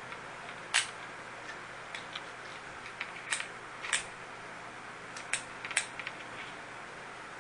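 Plastic clicks and snaps from the joints of a green Optimus Prime Grand Patriot transforming figure as its parts are moved during transformation. The loudest click comes about a second in, with a few more sharp ones between about three and six seconds in, over a steady hiss.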